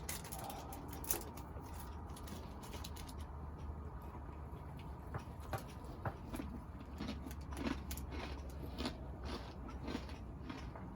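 Faint sounds of a person eating: chewing with scattered small clicks and taps, over a steady low background rumble.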